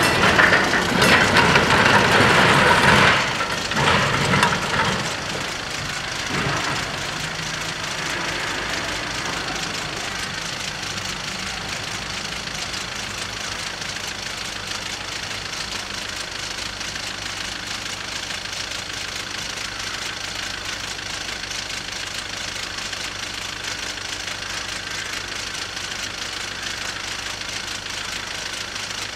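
Heavy articulated lorries driving over a railway level crossing, loud for the first few seconds and passing away about five seconds in. After that a steady engine hum continues at a lower level.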